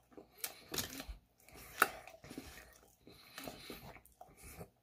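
A person chewing French fries close to the microphone: soft, irregular mouth clicks and smacks, with one sharper click a little under two seconds in.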